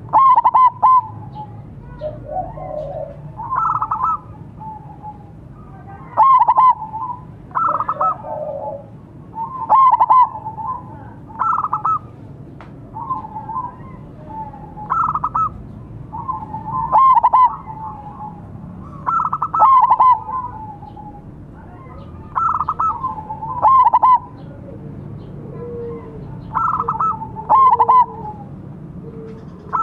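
Zebra doves (perkutut) cooing: a silver-coloured bird and a local bird trading short, rhythmic cooing phrases, one phrase about every two to three seconds.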